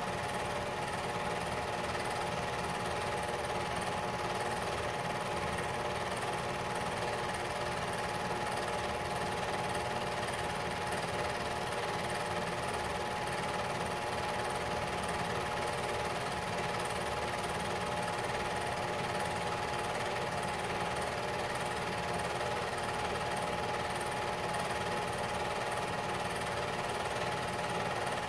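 Home-movie film projector running steadily: a fast, even mechanical clatter from the film advancing through the mechanism, with a steady whine from the motor and fan.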